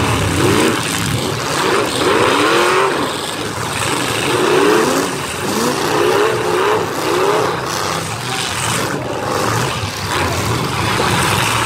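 Demolition derby cars' stock engines revving over and over, several engines at once, each rev a short rise and fall in pitch.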